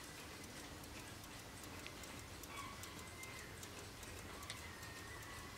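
Faint, quick, even ticking of a vintage brass ship's wall clock's key-wound mechanical movement running.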